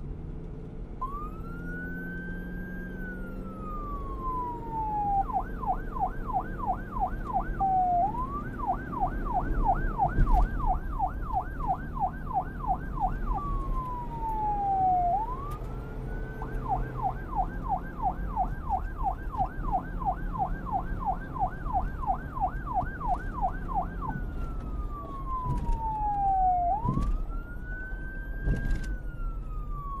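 Police car siren alternating between a slow wail, rising and then falling over a few seconds, and a fast yelp of several sweeps a second, over a low rumble.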